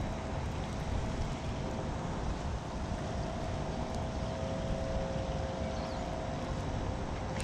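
Wind rumbling on the microphone, with a faint steady hum of two held tones under it; the higher tone fades out near the end.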